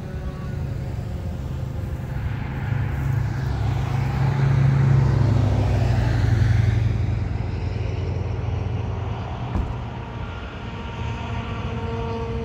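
A road vehicle passing by, its rumble rising to loudest around the middle and then easing off. At the start, the last falling tones of a Federal Signal 2001-130 siren winding down die away within the first second.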